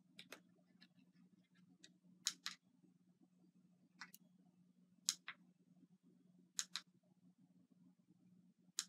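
Faint sharp clicks from the sticker light's small battery-pack switch being pressed, mostly in press-and-release pairs every second or two as the light is switched through its modes, over a low steady hum.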